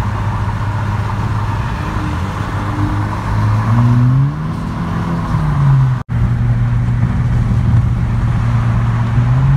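Car engine and road noise heard from inside the cabin while cruising on the freeway at about 58 mph. Midway the engine note rises as the car accelerates, then falls back. The sound cuts out for an instant about six seconds in, and the steady drone resumes.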